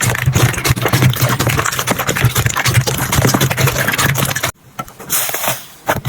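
Slime being squeezed and kneaded by hand, making dense crackling and popping. It cuts off sharply about four and a half seconds in, then a softer hiss and scattered pops follow.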